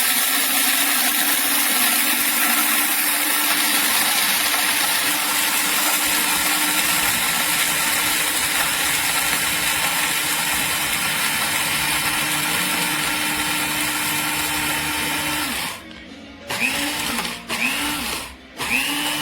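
Amazon Basics electric blade coffee grinder running steadily for about fifteen seconds, then stopping. It is then run in three short pulses, each rising in pitch as the motor spins up.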